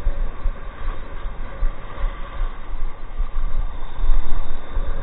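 Wind buffeting the microphone in uneven gusts, over the steady wash of breaking surf.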